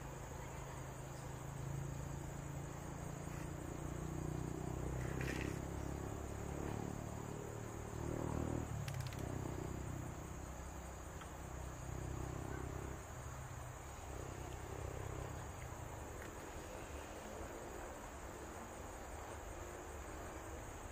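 Steady high-pitched insect buzzing over the low rumble of an Alsthom diesel-electric locomotive as it draws slowly closer. The rumble is strongest in the middle and eases off in the last few seconds.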